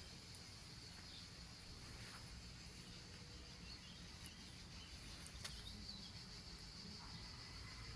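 Quiet outdoor ambience: faint, steady high-pitched chirring of insects over a low background rumble, with a few soft ticks.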